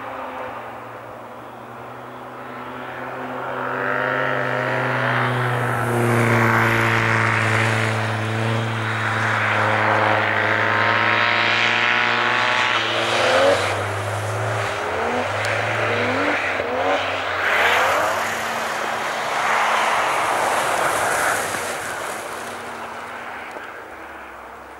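A car engine revving hard while the car slides on snow and ice. The pitch climbs for several seconds, drops sharply about halfway through, then rises and falls a few more times as the throttle is worked, over a hiss from the tyres spinning through snow. It grows louder as the car draws near, then eases off near the end.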